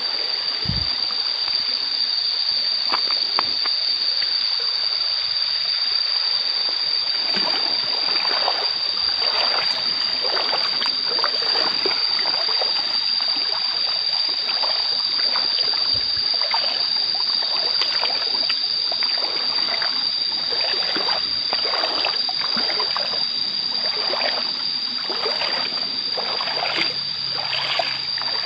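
River water running and burbling, with irregular splashy gurgles that grow busier a few seconds in. A steady high-pitched tone sounds over the water the whole time.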